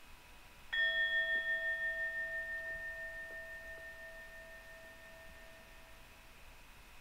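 A meditation timer's bell chime, sounding once about a second in and ringing down over about five seconds with a slow wavering; it marks the end of a three-minute interval in a timed meditation.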